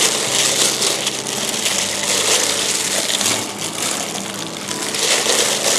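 Plastic gloves and a plastic bag crinkling and rustling in an irregular crackle as hands rub a wet marinade over the inside of a raw whole chicken.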